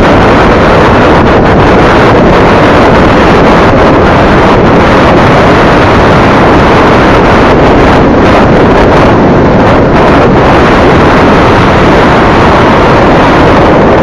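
Heavy wind noise buffeting the EKEN H9R action camera's built-in microphone while riding a scooter at speed: a loud, steady rush near full scale that covers everything else.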